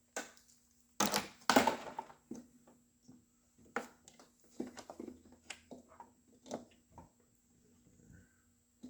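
Handling noise from a car's dash wiring harness and plastic trim being worked loose: a crunchy rustle about a second in, then scattered irregular clicks and rattles.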